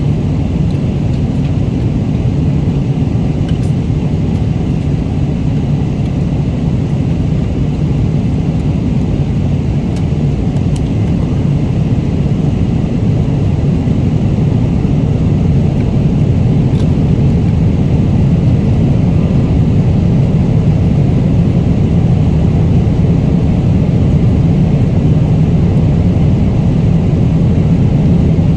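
Airliner cabin noise in flight: a loud, steady low drone, with a few faint ticks.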